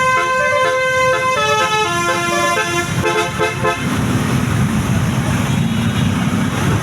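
Bus telolet basuri horn playing a quick multi-note tune, then stopping just under four seconds in, leaving the bus's engine running with a low rumble.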